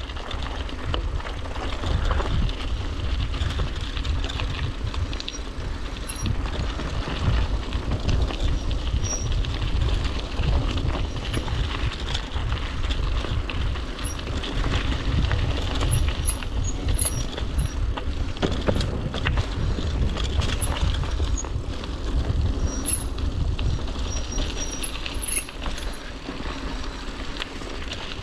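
A mountain bike riding fast down a dirt and rock forest trail: tyres rolling over dirt and stones, with many small knocks and rattles from the bike over bumps. Heavy wind rumble on the rider-mounted camera's microphone.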